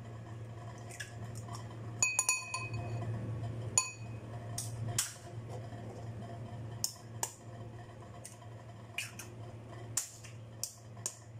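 Eggs being tapped on the rim of a ceramic bowl and cracked open one after another: sharp taps and clicks of shell, with a ringing clink of the bowl about two seconds in.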